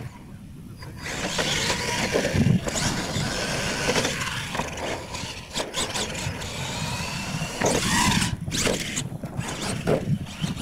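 Radio-controlled monster truck running on a dirt course: from about a second in, its motor and drivetrain whine rises and falls as it is throttled, with tyre noise and several knocks as it hits ramps and lands.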